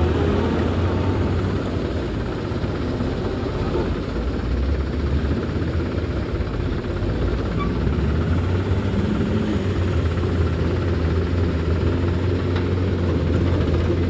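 A heavy diesel engine running steadily, with a constant low hum.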